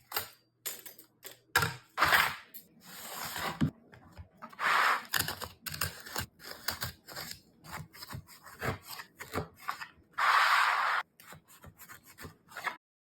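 A phone and its packaging being handled during an unboxing: a string of clicks and taps mixed with several longer rubbing, rustling swishes, the longest about ten seconds in. It stops abruptly near the end.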